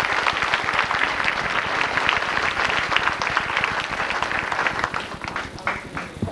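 Audience applauding: a dense, steady clapping that thins out to a few scattered claps near the end.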